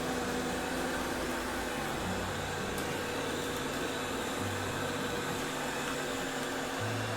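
iMartine C900 robot vacuum cleaner running: a steady motor whir with a constant hum.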